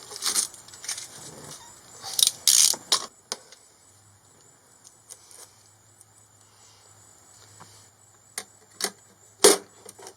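Metal clinks and knocks from tools and parts being handled: a busy run of clicks and rattles over the first three seconds, then a few separate sharp knocks near the end, the loudest about nine and a half seconds in.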